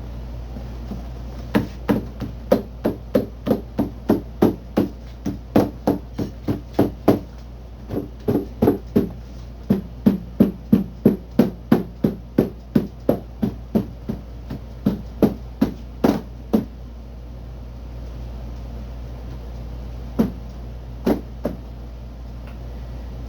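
Rubber mallet tapping along a car door's rubber gasket to seat its snap-in clips: a long run of blows, about two to three a second, then a pause and three more near the end.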